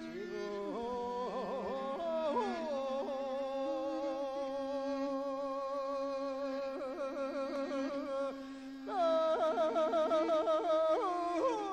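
Mongolian long song (urtiin duu) sung by a man, accompanied on the morin khuur (horsehead fiddle). The singer holds one long note with slight vibrato over a low steady fiddle drone, then from about nine seconds in breaks into rapid pulsing ornaments.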